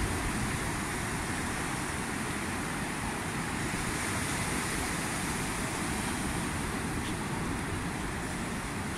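Steady noise of surf breaking on the beach, with wind rumbling on the microphone.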